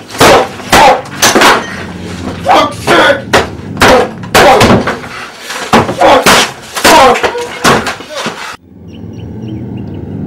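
Repeated loud crashes, bangs and thuds of boards, canvases and objects being hurled and smashed in a small room, about fifteen hard hits in quick succession. The din cuts off suddenly near the end, giving way to faint outdoor ambience with a few light chirps.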